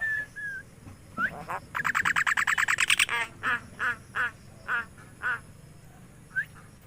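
Myna calling: a couple of short whistles, then a fast rattling chatter of about ten notes a second lasting about a second and a half, followed by five evenly spaced harsh calls and a brief rising whistle near the end.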